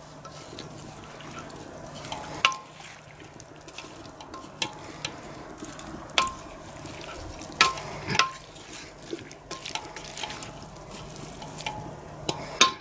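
Pumpkin and vegetable pieces being stirred in a stainless steel pot: the stirring utensil knocks irregularly against the pot's side, each knock ringing briefly, over a low steady hiss.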